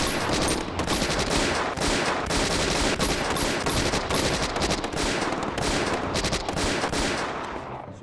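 Rapid automatic gunfire from several weapons, the shots overlapping densely without a break. It starts abruptly and eases off near the end.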